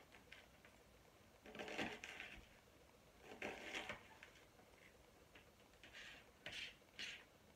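Kitchen knife chopping an onion finely on a plastic chopping board: quiet, quick taps of the blade on the board in a few short bursts.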